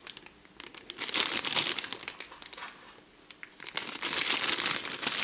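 Clear plastic bag around a bottle crinkling as the bottle is handled and turned. It comes in two spells: one about a second in, and a louder one from nearly four seconds in, with a quieter gap between.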